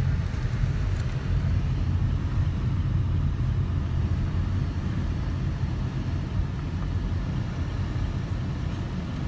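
Car being driven at low speed, heard from inside the cabin: a steady low rumble of engine and road noise.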